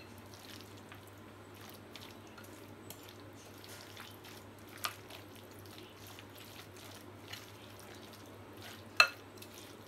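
Spoon stirring a thick, wet mixture of shredded chicken, mayonnaise and chopped vegetables in a glass bowl, with faint soft squelching. There is a light tap about five seconds in, and a sharp ringing clink of the spoon against the glass bowl near the end.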